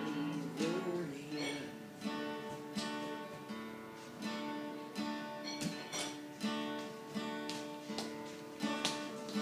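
Acoustic guitar strummed in a slow, steady pattern of chords. A man sings one line near the start, then the guitar plays on alone.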